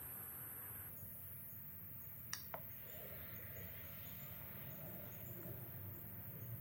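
Quiet room tone with a faint low hum, broken a little over two seconds in by two light metallic clicks, the second with a brief falling ring, as a steel rule and angle gauge are set against the planer's metal base.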